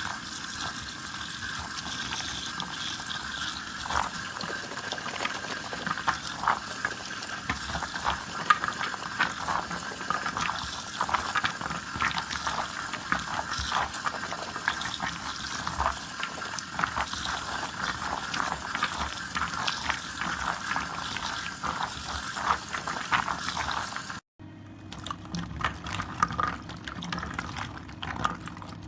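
Thick soap lather and foam squeezed and worked by hand: a continuous run of wet squelches and small crackling bubble pops. It breaks off for an instant near the end, then carries on.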